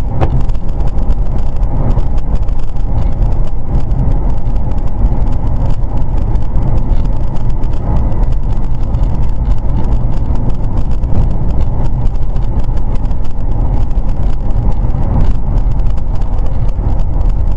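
Steady car engine and road noise, loud and even, strongest in the low end, with no distinct knocks or bangs.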